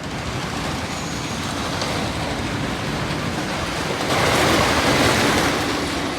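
Wooden roller coaster train running on its track, a steady rushing and rumbling noise of wind and wheels that swells louder about four seconds in.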